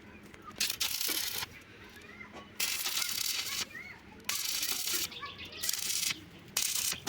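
Repeated bursts of hissing, each about half a second to a second long, with faint bird chirps in the gaps between them.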